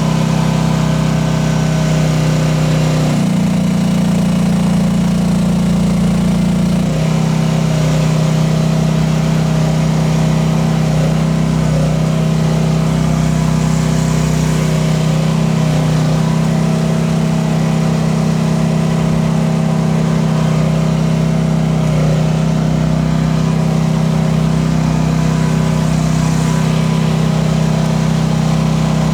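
Rippa R10 gas mini excavator's engine running steadily under load while working the hydraulics with about 450 pounds on the hook; its note changes about three seconds and again about seven seconds in.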